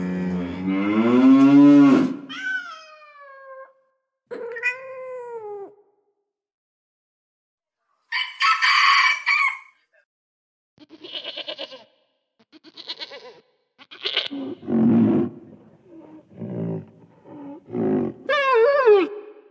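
A series of different animal calls edited one after another with short gaps. It opens with a cow's low mooing call, rising in pitch. Later come shorter calls, a run of low grunts, and near the end a pair of quacking calls.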